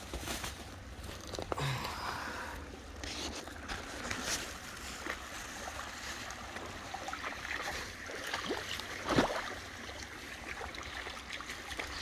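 Footsteps sloshing and knocking over stones in a shallow creek, with the stream's flowing water behind them; a louder knock or splash about nine seconds in.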